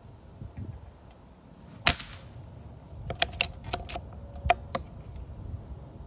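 A .177 CO2 pellet rifle firing once: a sharp pop with a short trailing hiss about two seconds in. About a second later comes a quick run of six sharp metallic clicks over a second and a half.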